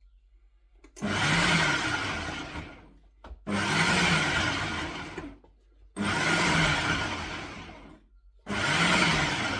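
Ninja food processor pulsed four times, chopping okra. Each run is loud for about a second and a half, then winds down as the blade coasts to a stop, with about one run every two and a half seconds.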